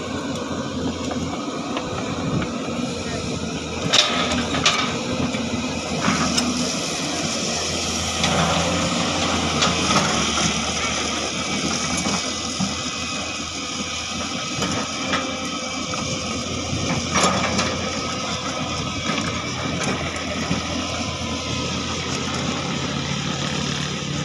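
Sany excavator's diesel engine working under load as the machine climbs, its pitch shifting. Several sharp cracks and knocks come through it, about four seconds in, again around six seconds, and once more near seventeen seconds.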